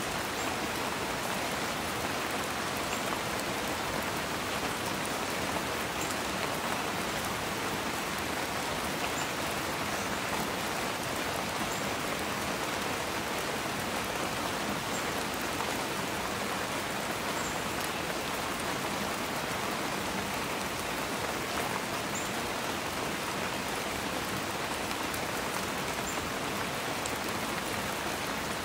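A steady, even hiss of water, with faint high ticks now and then.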